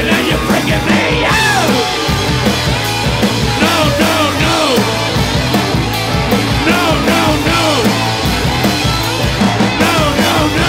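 Punk rock band playing live, loud and continuous, with bass guitar and drums under a line of notes that slide up and down over the top.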